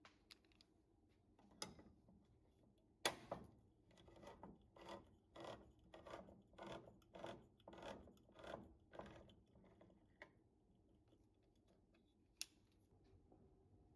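Hand-crank can opener on a can: a sharp click as it clamps on, then about ten even clicking turns, roughly two a second, as the wheel cuts around the lid. A single sharp click near the end.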